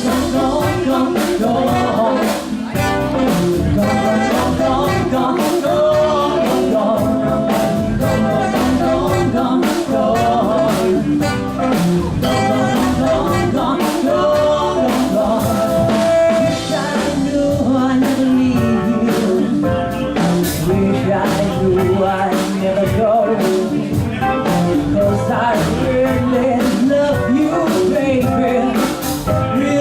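Live blues-rock band playing, with a drum kit keeping a steady beat under guitar and other sustained instrument lines.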